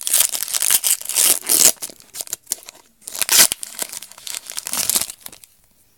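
Foil wrapper of a Pokémon TCG Plasma Storm booster pack being torn open and crinkled in the hands: two bouts of loud crackling, the second stopping about five seconds in.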